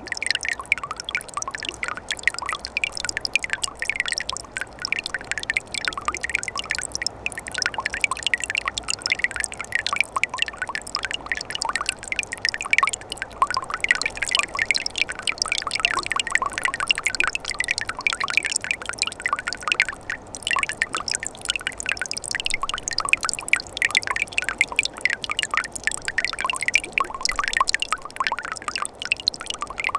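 Water in a mountain stream running in winter: a steady, busy trickling and splashing made of many small drips and splashes.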